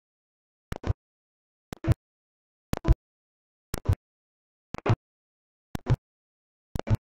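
A short double knock, a faint click and then a louder dull thump, repeating evenly once a second with dead silence in between.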